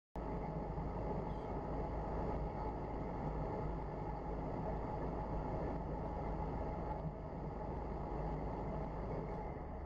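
Steady low background rumble with no distinct events, starting abruptly just after the beginning.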